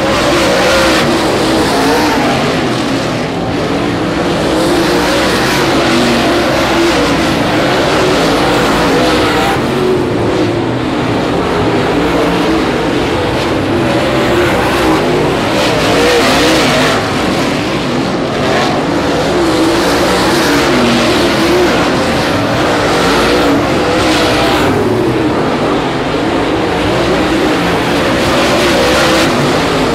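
Dirt late model race cars running their V8 engines hard around a dirt oval. The engine note wavers up and down as the drivers get on and off the throttle through the turns, and swells every few seconds as a pack of cars passes.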